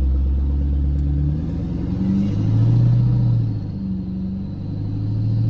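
Pickup truck's engine heard from inside the cab, a low rumble whose pitch drops about a second in, then rises and falls twice as the truck pulls away and eases off.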